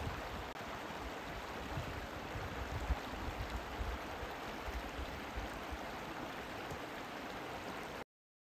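Shallow river running over a stony riffle, a steady rush of water that cuts off suddenly near the end.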